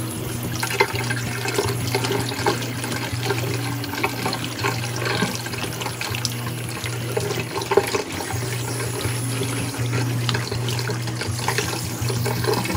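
Kitchen tap running onto a pumpkin as it is washed by hand in the sink, water splashing. Background music with a repeating bass note plays underneath.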